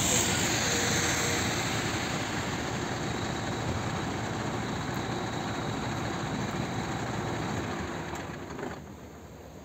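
A large diesel truck engine running steadily, then dying away about eight and a half seconds in.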